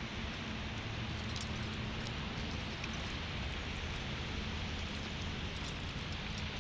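Steady hiss of outdoor background noise with a low hum under it, without barking or voices.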